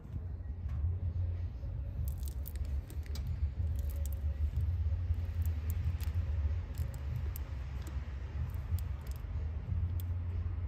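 Scattered light clicks and small rattles as a spin-on oil filter is handled and turned in the hand, over a steady low rumble.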